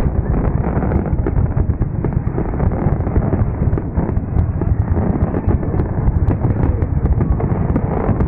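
Fireworks display: a continuous run of rapid, overlapping bangs and crackles with no pause.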